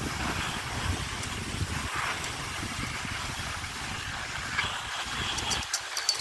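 Skis sliding on groomed snow, a steady hiss, with wind buffeting the microphone as an uneven low rumble. Near the end the wind rumble drops away, leaving the ski hiss and a few sharp high ticks.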